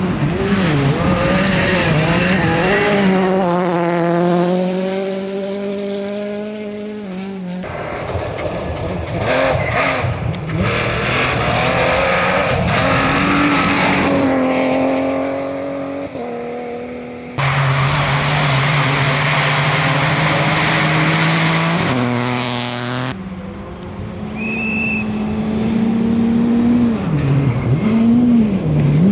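Rally cars at speed on gravel stages, their engines revving hard and rising and falling in pitch through the gears. The sound changes abruptly a few times as one pass gives way to another.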